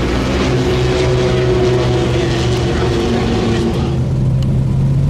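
Ferrari F50's V12 engine running at low revs, a steady deep drone; about four seconds in the engine note changes, the upper part dropping away and a lower tone coming forward.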